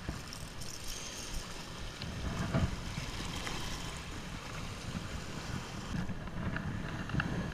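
Wind buffeting the microphone over small waves washing across shoreline rocks: a steady rumbling rush with a few faint knocks.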